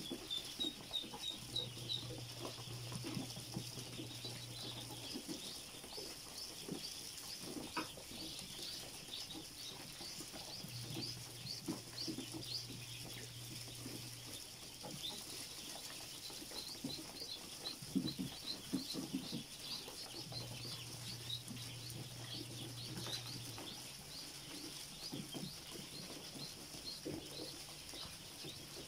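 A crowded brood of ducklings peeping, many short high peeps overlapping without a break, with the patter of their feet on plastic sheeting and straw. A low hum comes on three times for a few seconds each.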